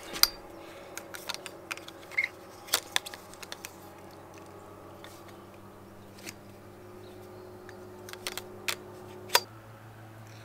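Irregular clicks and knocks of a plastic pipe and plastic boat-hook fitting being handled and fitted together, over a steady machine drone that is the silage cutting going on behind.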